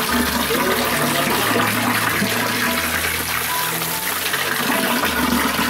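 Steady, continuous rushing water noise, with low sustained notes shifting about once a second underneath.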